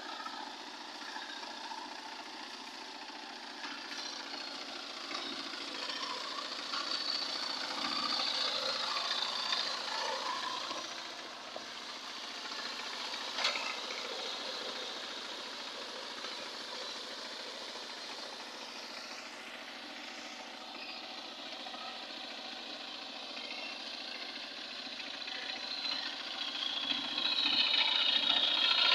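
Two-wheel power tiller's single-cylinder diesel engine running steadily under load as it churns a flooded paddy field. It grows clearly louder near the end as the machine comes closer.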